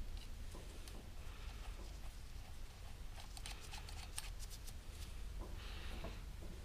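Faint handling sounds of small hand tools and metal parts being worked on a cast-iron lathe apron: light scattered clicks and ticks, with a quick run of them in the middle, over a low steady rumble.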